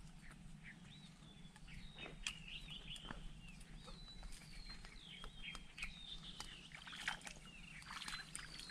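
Birds chirping: many short, high calls that bend and fall in pitch, repeating throughout, with a few faint clicks over a faint steady low hum.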